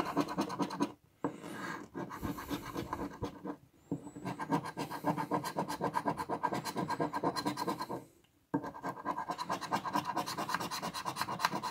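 A large metal coin scraping the coating off a scratch-off lottery ticket in rapid back-and-forth strokes, with a few brief pauses.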